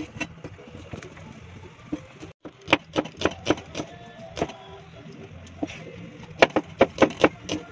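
Serrated kitchen knife chopping red onion on a cutting board: quick runs of sharp knocks, about five a few seconds in and about six more near the end, over a steady low hum.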